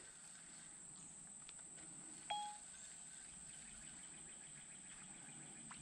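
Faint, steady, high-pitched insect drone from the swamp, with one short beep about two seconds in.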